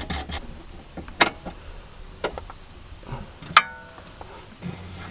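Hand tools knocking and clinking on metal suspension parts: a few separate sharp clicks, the loudest about three and a half seconds in, a metallic clink that rings briefly. A steady low hum runs underneath.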